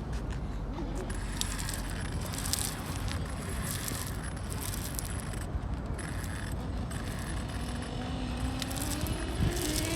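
Scattered light clicks and rattles over a steady outdoor background, then near the end the whine of an electric R/C car motor starting up and rising in pitch.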